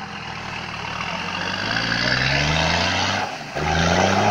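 Toyota LandCruiser 80 series turbo-diesel engine revving up as the truck pushes into deep floodwater, its pitch climbing steadily, dipping briefly about three seconds in, then climbing again. Under it runs the splash and churn of the tyres driving through muddy water.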